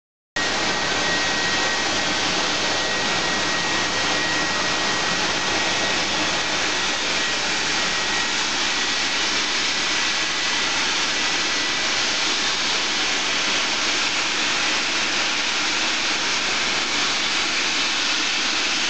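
GWR King class steam locomotive standing with steam escaping from it: a steady hiss with a faint high tone running through it.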